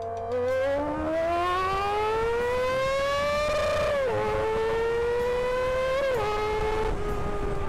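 High-revving motorcycle engine accelerating hard: a rising whine climbs for about three and a half seconds, drops with an upshift, climbs again, drops with a second upshift about six seconds in, then holds roughly level.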